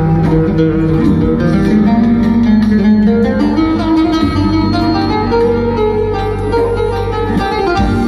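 Live music from an electronic keyboard played through a floor speaker: a plucked-string, saz-like melody over a steady bass line.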